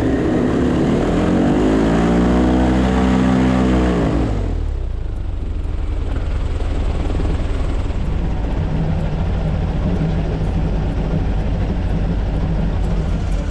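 Airboat engine and propeller revving up, rising in pitch and then falling away over about four seconds. After a sudden change, a steady boat-motor drone continues.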